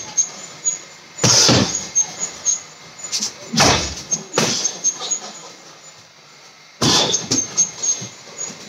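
Hard, grunting exhalations of a boxer working a heavy bag, with the thuds of punches landing, in a handful of short, sharp bursts with pauses between.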